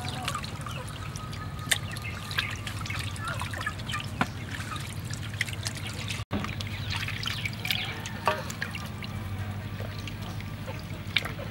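Water dripping and splashing as raw plucked quail are rinsed and squeezed by hand in a metal bowl of water, with many small irregular drips and clicks.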